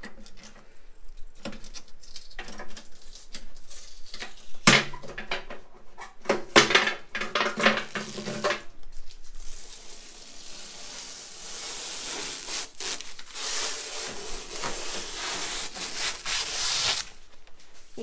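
Knocks and rattles of parts being handled inside a new microwave oven's cavity, busiest around the middle. Then protective plastic film is peeled off the oven door: a long, crackly hiss that stops suddenly near the end.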